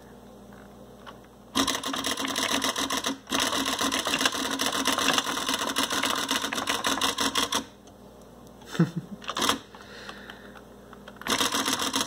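Xerox 6010 Memorywriter electronic typewriter printing in rapid runs of strikes, each character struck several times because bold and underline are both on. A long run of printing starts about a second and a half in and lasts about six seconds, with a brief break partway through. Short bursts follow near nine seconds, then another run near the end.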